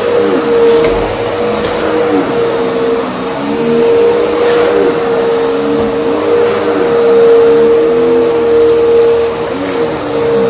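Bagless upright vacuum cleaner running while being pushed back and forth over a rug. A steady motor whine sits over lower tones that dip and rise about every second and a half.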